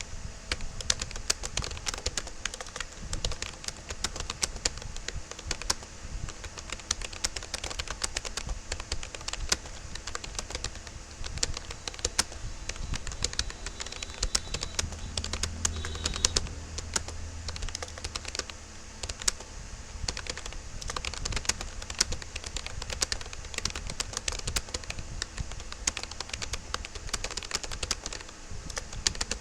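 Fast, steady touch-typing on a Rapoo computer keyboard: a dense, uneven stream of key clicks several strokes a second. A faint low rumble joins briefly about halfway through.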